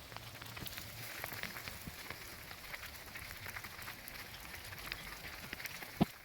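Hail and rain falling on the ground and outdoor surfaces as a steady hiss, with many small ticks from individual hailstones. One sharp, loud knock about six seconds in.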